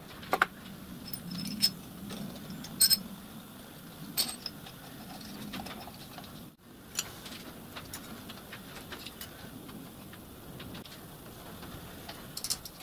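Sharp metallic clicks and clinks of a clamp, plate and tools being handled on a drilling machine's table as a cast iron cylinder block is set up, over a faint low hum. The clicks come several in the first few seconds and again near the end.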